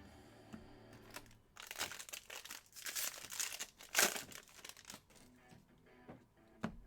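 Plastic trading-card pack wrapper being torn open and crinkled in a run of noisy bursts, loudest about four seconds in, followed by a single sharp tap near the end.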